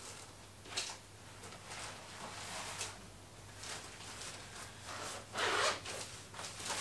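Canvas tote and plastic shopping bags rustling and rubbing as a padded iPad travel sleeve is pulled out and handled, in uneven bursts: a short sharp rustle about a second in and a longer, louder one near the end.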